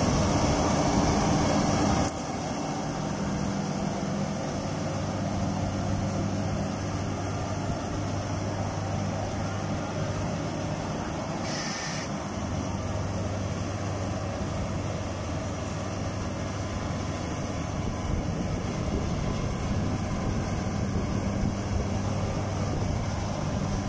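Diesel engines of Kubota combine harvesters running steadily under load as one tries to tow the other, bogged down in deep mud, out on a cable. Louder for about the first two seconds, then an even hum.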